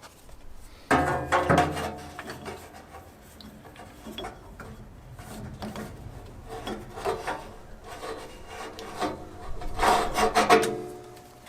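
A rubber drive belt being worked on the bandsaw's lower pulleys by hand: irregular rubbing and scraping with short squeaky strokes, loudest about a second in and again near the end.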